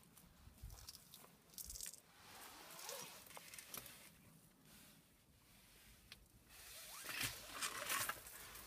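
Faint crunching and scraping of footsteps on dry leaves and stony ground, in uneven patches and growing louder near the end.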